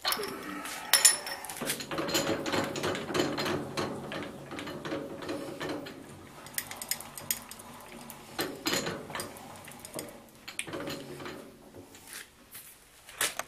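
Irregular metallic clicks and clatter of a milling-machine vise being tightened on a collet block and its handle set down on the steel table, then the table handwheel turned near the end.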